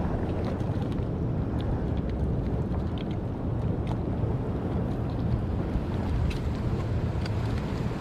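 Wind rushing over the microphone over the steady wash of sea waves against a rock shelf, with a few faint ticks.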